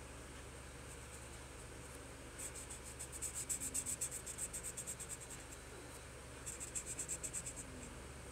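Felt-tip marker rubbing back and forth on lined paper while colouring in, in quick strokes several a second. There are two runs: a longer one starting a couple of seconds in, and a shorter one near the end. A steady faint hiss lies under it.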